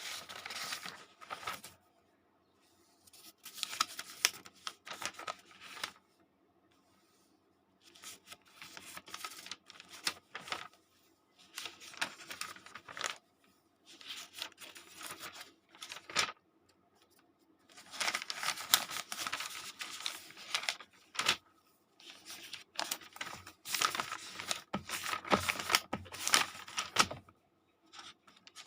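Paper pages being turned one after another, in a series of papery swishes and flicks. Each flurry lasts a second or a few seconds, with short pauses between them.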